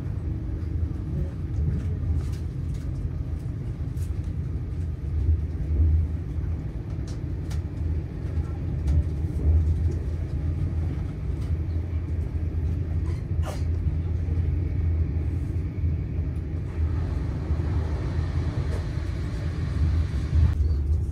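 Passenger train running at speed, heard from inside the carriage: a steady low rumble of the rolling train with faint scattered clicks. A hiss rises over the rumble about seventeen seconds in and cuts off abruptly near the end.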